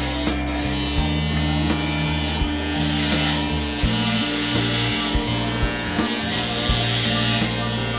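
Electric hair clippers buzzing as they cut through long hair, over background music with a steady beat and a bass line.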